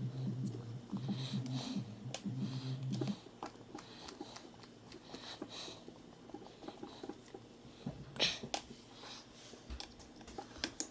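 Small clicks and taps of a hex driver and screws being worked on a plastic and metal RC crawler chassis while its side screws are removed. A low hum starts and stops during the first three seconds. A slightly louder rattle comes about eight seconds in.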